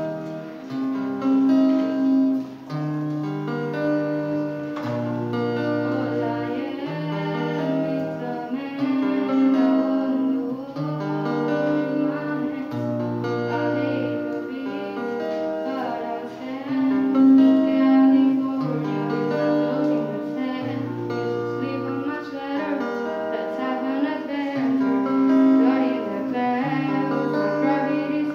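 Music: an electric guitar played through a small practice amplifier. It plays a repeating chord progression, with sustained chords over a bass line that changes about every second and a half.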